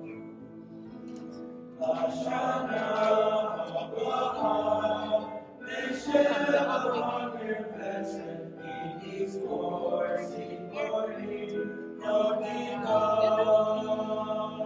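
A choir singing in phrases over sustained accompanying chords, the voices coming in about two seconds in.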